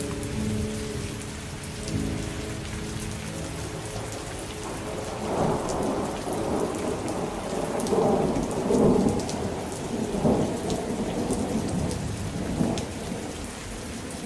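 Steady rain with scattered drops ticking, and a long roll of thunder rumbling in swells from about four and a half seconds in until near the end. Held notes of slowed music die away in the first couple of seconds.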